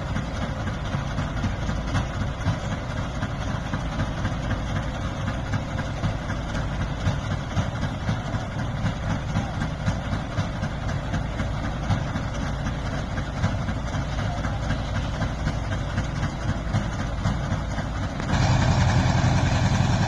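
Heavy diesel engine of an excavator working on a river barge, running steadily; about 18 seconds in it becomes clearly louder and deeper.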